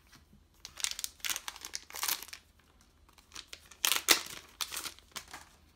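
Foil booster pack wrapper being torn open and crinkled by hand, in two spells of crackling, the louder about four seconds in.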